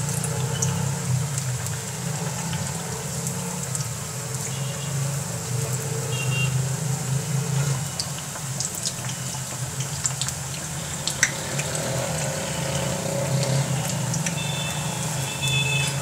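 Aloo pakoras (batter-coated potato slices) deep-frying in hot ghee in a pan: a steady sizzle with scattered pops and crackles, over a steady low hum.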